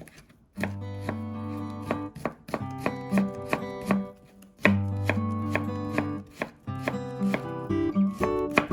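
Knife chopping rapidly on a cutting board over light plucked-guitar background music with a steady bass line.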